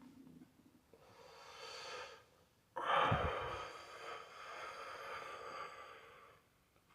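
A person draws a long breath in on a blunt, then about three seconds in blows the smoke out in one long exhale that starts abruptly and loud and tapers off over about three seconds.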